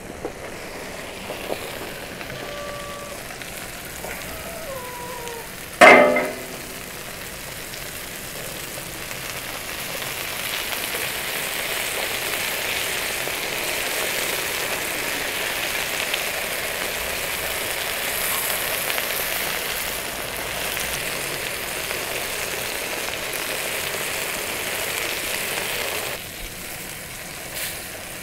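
Spatchcocked chicken and sliced potatoes sizzling on a hot flat cooking stone over a fire. The sizzle swells louder about ten seconds in and drops back near the end. A single sharp clatter, the loudest sound, comes about six seconds in.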